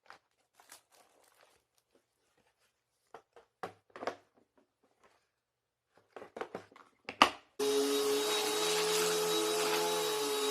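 A string of clicks and knocks as the emptied dust bag is fitted back into a Bissell PowerLifter vacuum and its compartment is closed, ending in a sharp snap. About seven and a half seconds in, the vacuum switches on and runs steadily.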